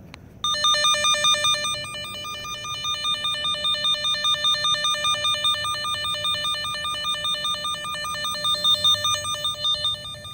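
Handheld receiver of a Vevor underground cable locator beeping continuously, a rapid electronic warble flipping between two pitches that starts about half a second in. It is picking up the transmitter's signal strongly, with the receiver set too sensitive to single out the buried cable.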